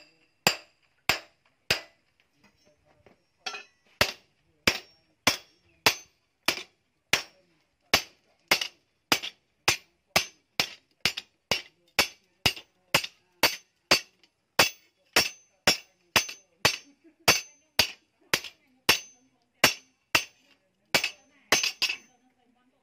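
Hand hammer striking a steel blade cut from a chainsaw bar on an iron post anvil: ringing metal-on-metal blows, about one every 0.6 seconds, with a pause of about two seconds after the first four.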